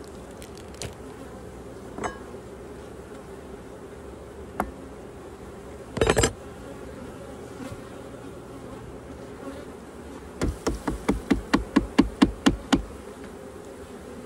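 Honeybees buzzing steadily around the open hives. A few single clicks come early, a short louder burst about six seconds in, and near the end a quick run of about a dozen sharp knocks, about five a second.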